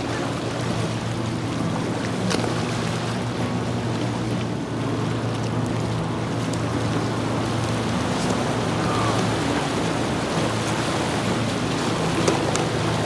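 Small waves lapping and splashing against a flat rock lake shore, over a steady low motor drone.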